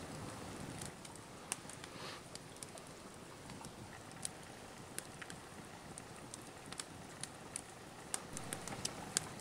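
Fatwood fire burning with irregular sharp crackles and pops.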